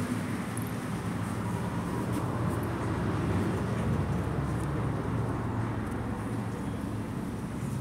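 Wind on the phone's microphone: a steady low rumble.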